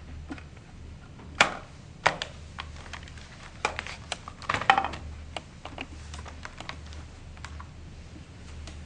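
Scattered plastic clicks and knocks from a laptop being handled: its drive-bay cover pressed home, the machine turned over onto the table and its lid opened, with the sharpest clicks about a second and a half and two seconds in and a cluster around four to five seconds. A low steady hum runs underneath.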